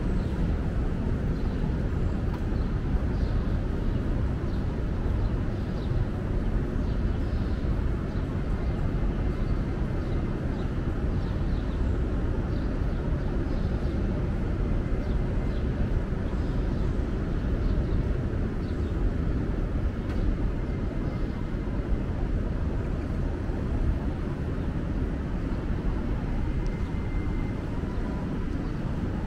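Steady low rumble of outdoor city ambience, even throughout with no distinct events.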